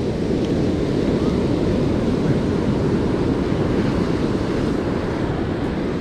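Steady wash of breaking ocean surf mixed with wind buffeting the microphone, heaviest in the low rumble.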